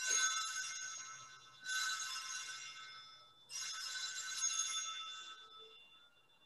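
Sanctus bell rung three times at the elevation of the consecrated host, about two seconds apart, each ring high-pitched and fading away before the next.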